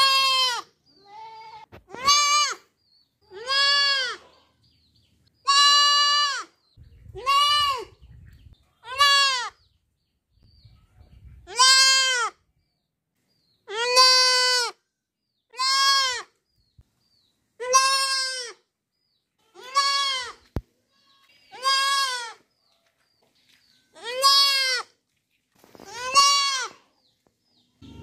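Goat kid bleating over and over: a loud, high-pitched baa roughly every two seconds, each call about half a second long and rising then falling in pitch.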